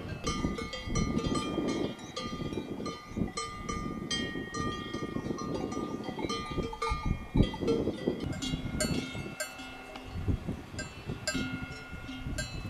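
Bells worn by grazing livestock clanking irregularly, several bells at different pitches ringing over one another.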